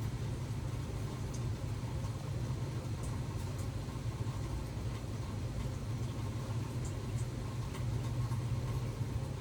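A steady low rumble that does not change, with a few faint ticks.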